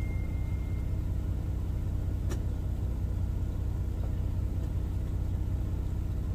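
Steady low rumble of an idling diesel truck engine, heard from inside the truck, with one faint click a little over two seconds in.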